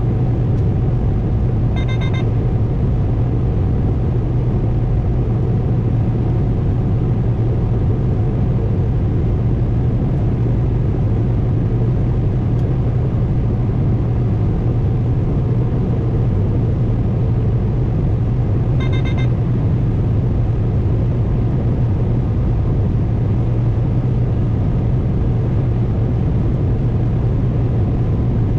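Combine harvester running steadily while harvesting corn, a constant low engine hum under a rushing machine noise. A short electronic beep sounds about two seconds in and again about seventeen seconds later.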